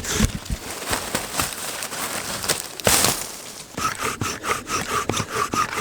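Scattered rustling and handling clicks, then about four seconds in a bow drill starts up: the wooden spindle squeaking as it rubs in the hearth board with each back-and-forth stroke of the bow, about three strokes a second.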